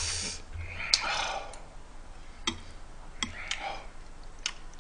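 A few sparse, light clicks of metal chopsticks against the griddle and tableware as beef bulgogi is picked up and laid onto a lettuce wrap.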